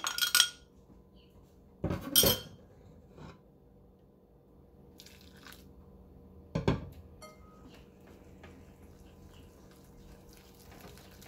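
Dishes clinking and knocking: a sharp knock about two seconds in and a duller thud about six and a half seconds in as ground flaxseed is tapped out of a grinder cup into a china bowl. Faint soft rubbing follows as the flaxseed is worked by hand in the bowl.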